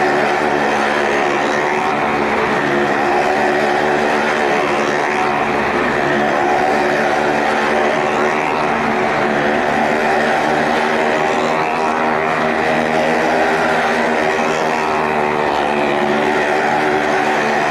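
Maruti car engines running at steady high revs while the cars circle the vertical wall of a well-of-death pit.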